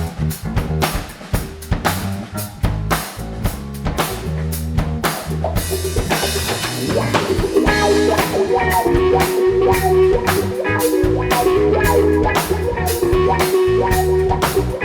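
Live funk-rock band playing an instrumental groove: a drum kit and bass guitar keep a steady beat, and about halfway in, held electric guitar notes come in over them and the music gets louder.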